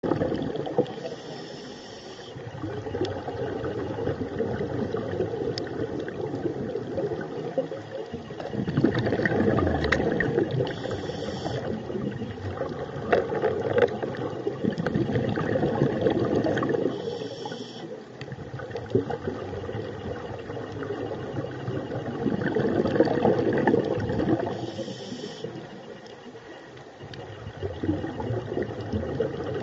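Scuba diver breathing through a regulator underwater. Each breath has a short hiss of inhalation through the demand valve, then a long bubbling rush of exhaled air. About four breaths, each several seconds long.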